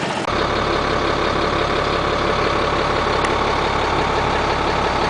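Caterpillar 300 hp diesel engine of a motorhome idling steadily, a low rumble coming in sharply about a third of a second in.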